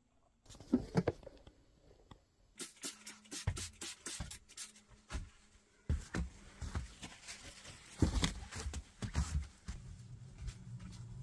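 Irregular handling noises of hand cleaning in a small room: sharp clicks, knocks and rustles as a cloth and cleaning things are handled and wiped over a mirror, with a faint low hum underneath.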